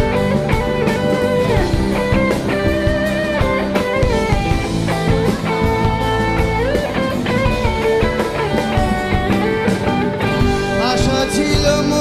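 Live rock band playing an instrumental passage: electric guitar with long, sliding notes over bass and a steady drum beat.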